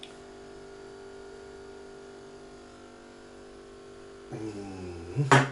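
Steady electrical hum made of several constant tones. About four seconds in, as a shot is downed, a man makes a low voiced sound, then a short, loud vocal exclamation.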